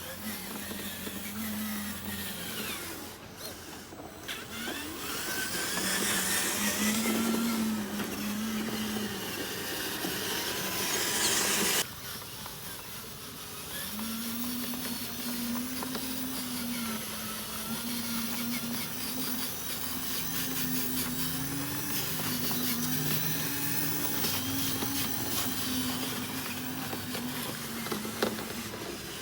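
Small electric motors of radio-controlled construction models whining, their pitch rising and falling in steps as they are driven, with a sudden change in the sound about halfway through.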